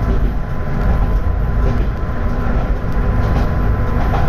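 Kanto Railway diesel railcar running along the line, heard from inside the car: a steady low rumble of engine and wheels on the rails.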